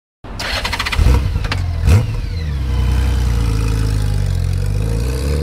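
Motorcycle engine cranking and catching with a rapid clatter, blipped twice sharply, then settling with a falling pitch into a steady low idle.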